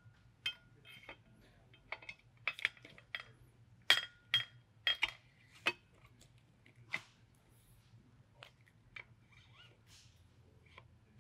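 Metal clicks and clinks as the barrel is slid into an FX Maverick air rifle's action and seated: a run of sharp knocks, some with a brief metallic ring, coming thickest over the first six seconds and only now and then after that.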